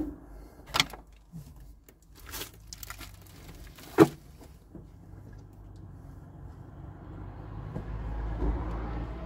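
Clicks and knocks of curtains being fitted over the van's windows, with a sharp snap about four seconds in. Then an SUV's engine and tyres rise in a low rumble as it pulls away past the van, loudest near the end.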